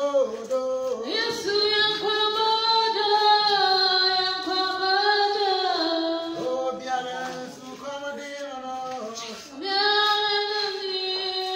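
Women's voices singing a church song, in long held notes.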